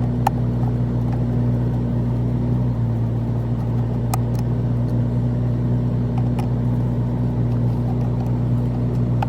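A steady low machine hum, like a running motor, under a few light clicks as screws are worked out of a car's center-console trim.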